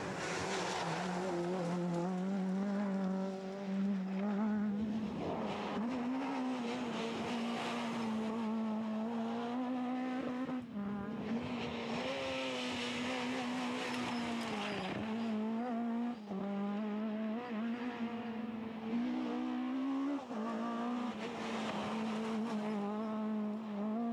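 Talbot Samba rally car's engine running hard at high revs, its note held fairly level, with several brief drops in pitch and loudness as it changes gear.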